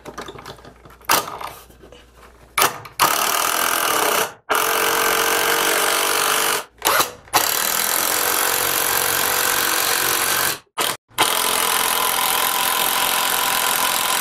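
Cordless impact driver (a Porter Cable PCC647) driving screws through 2x4 fir blocking into a wall stud. After a couple of short trigger blips it runs hard and steadily in several long stretches of a few seconds each, with brief stops between them.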